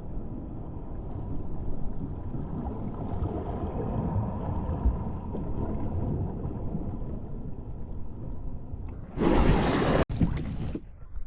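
Wind rumbling on the microphone and water moving around a fishing kayak at sea. About nine seconds in, a much louder rush of noise starts and cuts off sharply a second and a half later.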